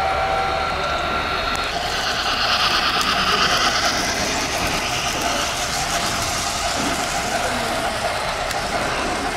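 HO scale model trains running along layout track: a steady whir of motors and wheels, with a brighter hissing rush that swells about two seconds in.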